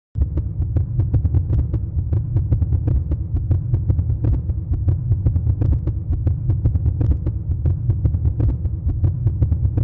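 Slime being squished and kneaded by hand, giving dense crackling clicks and pops over a steady low rumble.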